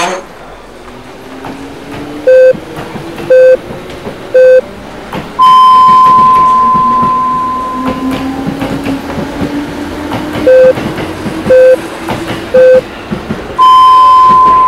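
Japanese time signal (jihō) playing over a passing train: three short beeps a second apart, then a long tone an octave higher, heard twice. The train's rumble and a slowly rising motor whine run underneath.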